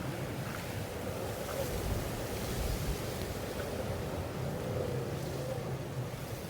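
Wind rushing steadily, swelling a little about two to three seconds in, with wind noise on the microphone.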